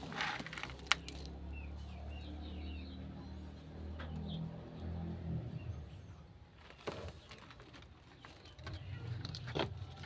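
Hand working moist potting soil around the trunks of a small tree planting in a tray: short rustles and a sharp click about a second in, and more rustles near the end. A few bird chirps come in early on over a low steady hum.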